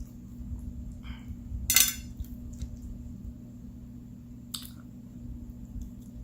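Cutlery scraping and clinking against a dish during a meal, loudest in a short scrape just under two seconds in and again briefly about four and a half seconds in, with a steady low hum underneath.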